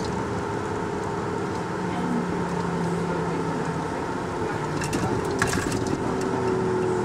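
Bus diesel engine running with its air compressor working, a steady mechanical hum with several steady tones. A few sharp clicks come around five seconds in.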